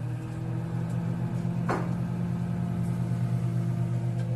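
Microwave oven running with onions inside, a steady electrical hum. One brief crackle comes about two seconds in.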